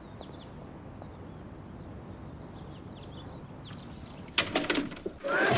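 Small birds chirping over a steady outdoor hiss, then a glass-paned wooden door shuts with a sharp knock and a short rattle about four seconds in. A loud crash starts just before the end.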